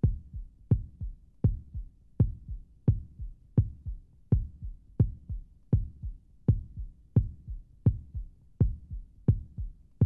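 A deep, steady heartbeat-like thump in the opening soundtrack, about three beats every two seconds, each main beat trailed by softer ones.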